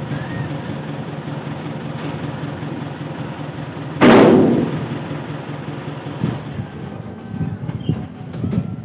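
Truck engine idling with a steady low hum. About four seconds in, a sudden loud burst cuts in and fades within about half a second; near the end come scattered knocks.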